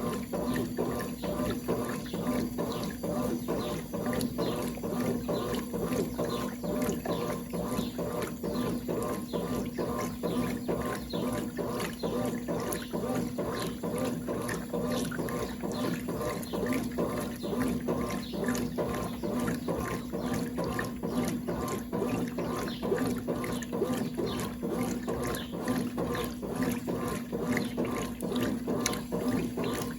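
1996 Brastemp Clean 5 kg top-loading washing machine (BWR22A) running with water in the tub. A steady motor hum sits under a regular churning beat.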